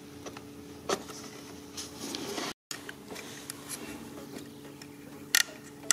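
A few faint plastic clicks and some rustling as fingers work the safety lock and latch of a throttle-body wiring-harness connector, over a steady low background hum.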